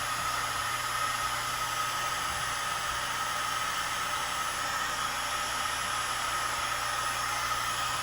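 Heat gun running steadily, blowing hot air onto epoxy and fiberglass matting on a plastic radiator tank to cure it: an even rush of air with a constant whine.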